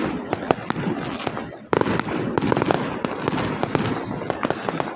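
A string of firecrackers going off in a rapid, irregular crackle of sharp pops. It briefly dips about one and a half seconds in, then picks up again.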